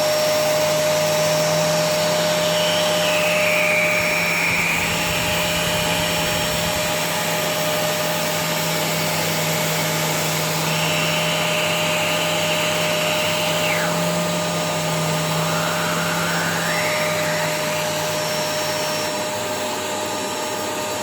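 Vacuum cleaner running steadily, its nozzle held against a PC case fan. A higher whine over the rush of air shifts in pitch several times, falling and then rising again.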